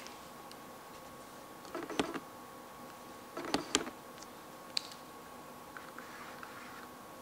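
Sigma 85mm f/1.4 Art lens's autofocus motor racking focus through its range twice, each a brief whir of about half a second with clicks, about two and three and a half seconds in, then one small click near five seconds.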